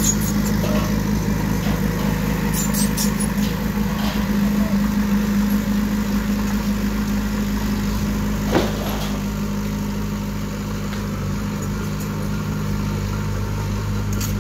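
Diesel engine of a small earthmoving machine running steadily, with a single sharp knock about eight and a half seconds in.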